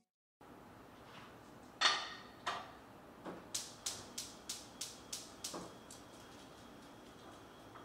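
Gas range's spark igniter clicking rapidly, about four clicks a second for a couple of seconds, as a burner is lit. Before it come a couple of louder knocks.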